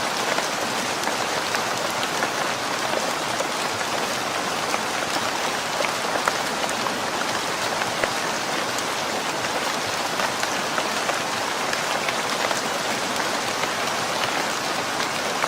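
Steady rain falling, with a dense patter of many small drop impacts on a hard surface.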